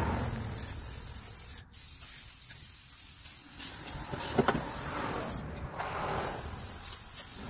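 WD-40 aerosol can spraying a steady hiss of lubricant onto a spare-tire hoist cable and the underbody, with a brief break just under two seconds in.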